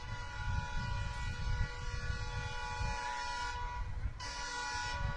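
WDP4D diesel locomotive's horn sounding a long, steady chord-like blast over a low rumble, growing brighter and hissier for about a second near the end. It is an acknowledgement honk.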